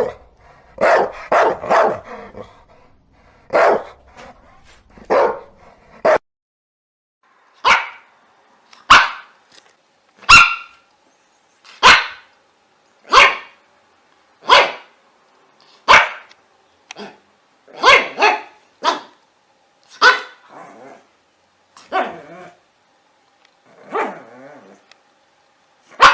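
Dog barking: a few quick barks in the first seconds, then, after a brief pause, single sharp barks repeated roughly every second and a half, thinning out toward the end.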